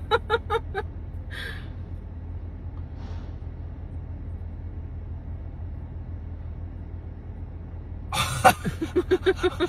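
Steady low hum inside a car cabin. Short, evenly spaced bursts of laughter come in the first second and again near the end, with a sharp breath about a second and a half in.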